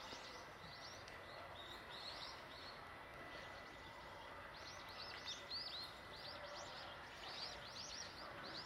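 Small birds chirping: many short, high chirps coming in clusters over a steady background hiss, busiest in the second half.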